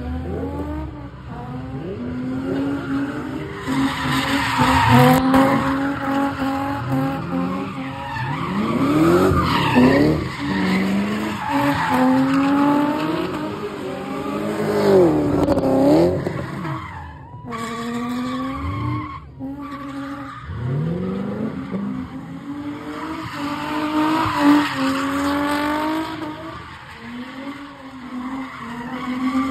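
Car engines revving up and down over and over while tires screech and skid in donuts and drifts.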